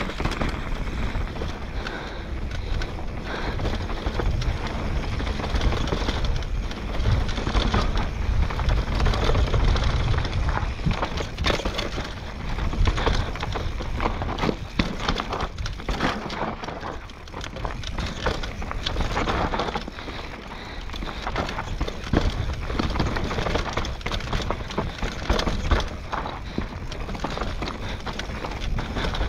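Mountain bike riding down a rough downhill trail: a continuous clatter of tyres over dirt and rocks and the bike rattling, full of sharp knocks, over a deep rumble.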